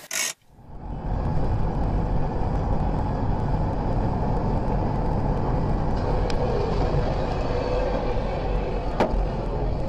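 A brief burst of hiss right at the start, then the steady road and wind noise of a car driving at highway speed, heard from inside the cabin through a dashcam. A sharp click comes about nine seconds in.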